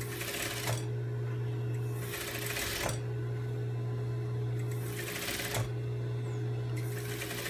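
Sewing machine edge-stitching satin fabric in several short runs over a steady motor hum.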